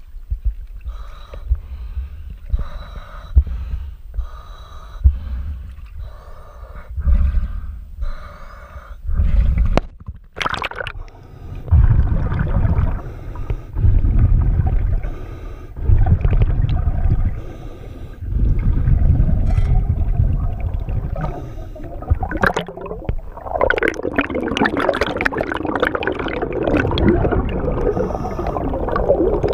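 Water sloshing and gurgling around the camera, which goes under about ten seconds in. Then a scuba diver's breathing through a regulator: a bubbling exhalation every couple of seconds, turning to a dense rush of bubbles in the last few seconds.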